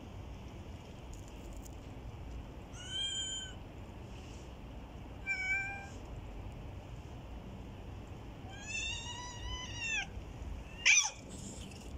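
Domestic cats meowing: about five short, spaced meows, the loudest and sharpest one near the end.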